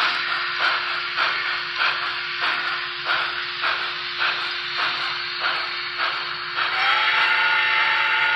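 Paragon4 sound decoder in an N scale Reading T-1 model steam locomotive playing slow, even steam chuffs, about one every half second or so. About seven seconds in, the locomotive's whistle starts a long chord of several tones that carries on.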